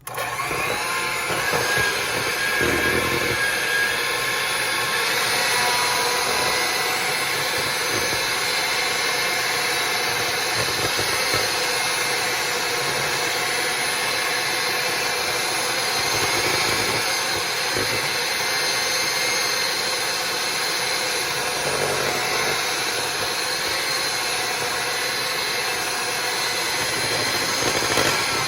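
Electric hand mixer switching on suddenly and running steadily, its beaters whipping chilled coconut cream to beat air into it toward stiff peaks.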